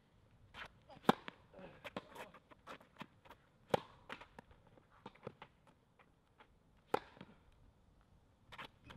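Tennis rally: a ball struck with a racket about every three seconds, with three sharp, loud hits about one, four and seven seconds in. Fainter ball bounces and strikes fall between them.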